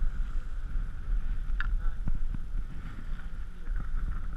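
Wind rumbling on a chest-mounted GoPro microphone during a chairlift ride, with a steady hum and a few short clicks, one about one and a half seconds in, one about two seconds in and one near the end.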